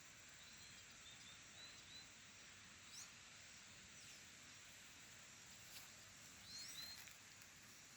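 Faint birds calling: a few short high chirps in the first couple of seconds, then quick rising whistles about three seconds in and again near seven seconds, over a steady hiss.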